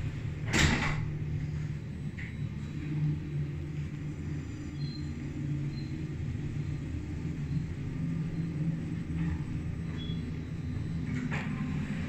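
Schindler glass passenger lift car travelling between floors, a steady low rumble throughout. There is a short noisy burst about half a second in and a couple of brief clicks near the end.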